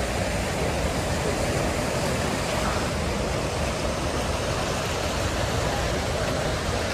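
Steady rushing outdoor noise with an uneven low rumble.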